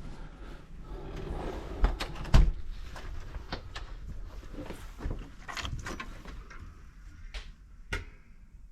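Irregular knocks, clicks and rustling of things being handled and set down, with two louder thumps about two seconds in.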